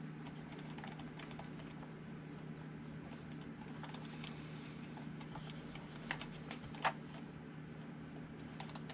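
Light clicks and taps of hands handling the front wheel and suspension parts of a 1/10-scale RC buggy, with two sharper clicks about six and seven seconds in, over a steady low hum.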